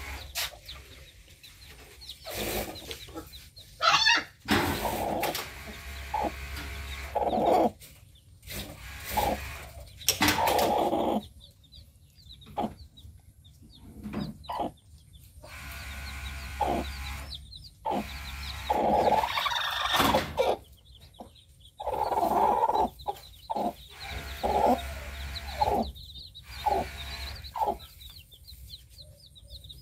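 Broody hen clucking repeatedly over her newly hatched chicks, with the chicks' thin high peeping in the background and a few louder harsh bursts.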